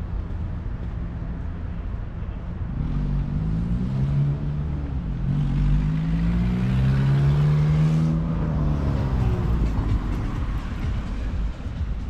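A motor vehicle's engine accelerating past over a steady low street noise. Its pitch rises, drops briefly as if shifting gear, rises again to a peak a little past the middle, then falls away.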